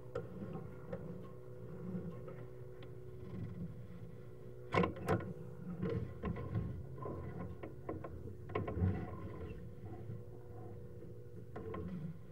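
Sewer inspection camera being fed down a drain line on its push cable: a steady electrical hum with scattered knocks and rattles as the cable is handled, and two sharp clacks a little under five seconds in.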